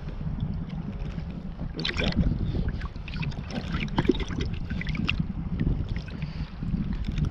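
Sea kayak being paddled, with paddle strokes splashing and water trickling in irregular clusters, over a steady rumble of wind on the microphone.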